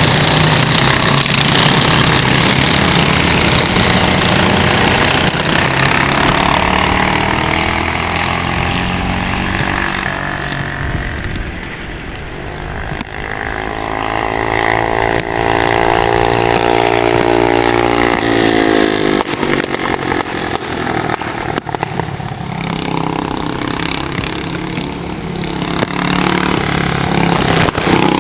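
Go-kart engine running under racing load. Its pitch sags about twelve seconds in, climbs steadily for about five seconds as it accelerates, then falls away as the throttle comes off.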